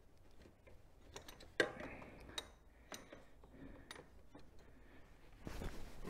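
Scattered metallic clicks from a socket wrench working the old oil filter loose, the sharpest about one and a half seconds in, then a brief rustle of clothing near the end.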